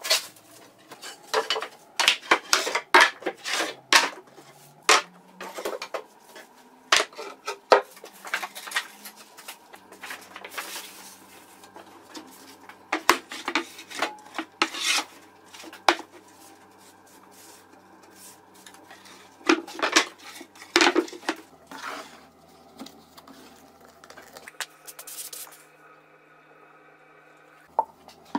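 Pieces of plywood being handled, knocked together and set down on a workbench: repeated wooden clacks and clatter in bursts, thinning out near the end.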